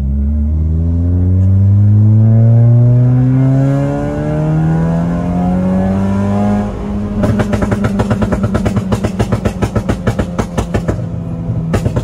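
Honda Mobilio's 1.5-litre four-cylinder engine accelerating hard, heard from inside the cabin, its pitch rising for about seven seconds. Then the throttle lifts and the exhaust pops and crackles in a rapid string of bangs, about seven a second for some four seconds, with one more bang near the end: the tuned pop-and-bang ('dastek') ECU map.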